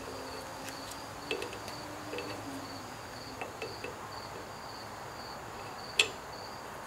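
Light metallic clicks of a wrench on a hydraulic hose fitting as it is tightened onto a backhoe's bucket curl cylinder, with one sharper click about six seconds in. Behind them a high-pitched chirp repeats steadily a few times a second.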